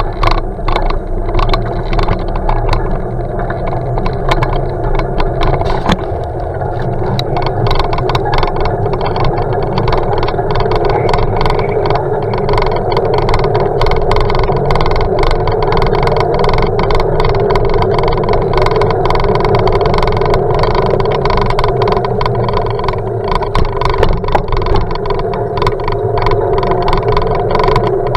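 Rolling noise and rattle of a bicycle riding over a concrete paving-block path, picked up through an action camera's sealed housing: a loud steady rumble crossed by many small knocks.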